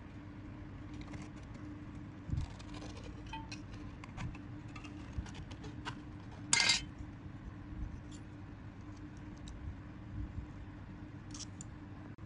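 Scissors snipping through thin metal sheet, with small metallic clicks and crinkles as the sheet is cut and handled; one louder snip comes a little past the middle.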